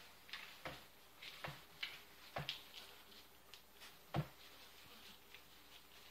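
Bully puppies moving about in a wooden whelping box: faint rustling and scrabbling in the wood-shavings bedding, with a few sharp knocks, the loudest about four seconds in.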